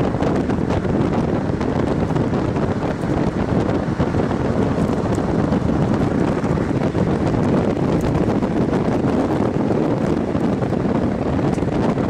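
Wind buffeting the built-in microphone of a Sony CX110 camcorder mounted on the outside of a moving car: a steady, loud rumble that buries the road and engine sound.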